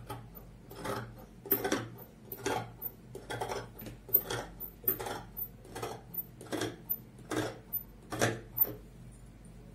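Fabric scissors snipping through cloth in a steady rhythm, about one cut a second with a light click of the blades on each stroke; the cutting stops near the end.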